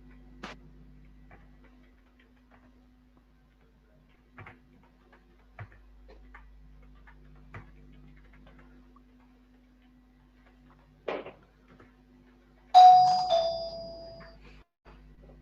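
Faint scattered clicks, then about thirteen seconds in a loud two-note chime that rings and fades over about a second and a half.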